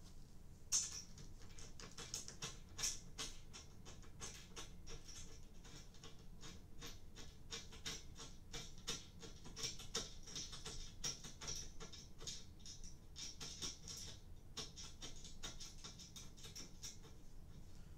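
Bolts on a metal bed-frame bracket being turned by hand: a faint, rapid run of small scratchy metallic clicks, starting about a second in.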